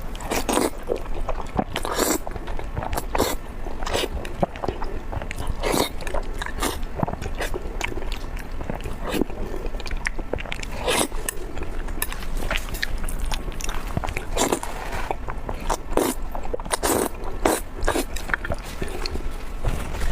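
Close-miked eating sounds: biting and chewing with irregular sharp, sticky mouth clicks about once or twice a second.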